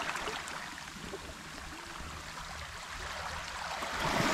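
Small waves washing over a pebble shoreline: a soft, steady wash that swells louder near the end.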